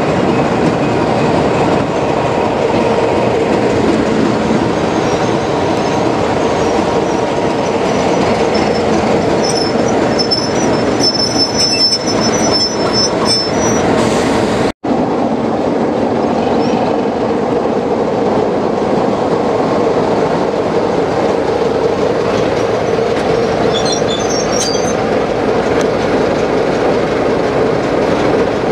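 Class 33 diesel locomotive's Sulzer eight-cylinder engine running steadily as the train moves, heard from a carriage window, with a high wheel squeal around the middle. After a sudden cut, the locomotive runs slowly past close by, its engine running steadily.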